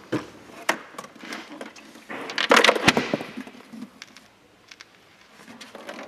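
Plastic clicks and knocks from a removed Audi A3 glove box assembly being handled, with a louder rattling clatter about two seconds in.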